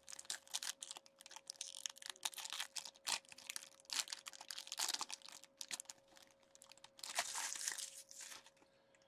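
Foil wrapper of an Upper Deck SP Game-Used hockey card pack being torn open and crinkled, crackling and rustling in uneven bursts. The loudest crumpling comes about seven seconds in, as the cards are slid out and the wrapper is scrunched.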